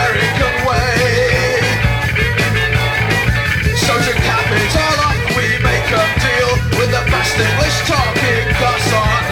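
Rock band music with no words: a wavering, gliding lead line over a steady bass and drums.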